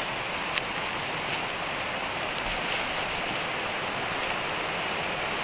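Steady hiss of rain falling through the woods, with a single sharp tick about half a second in.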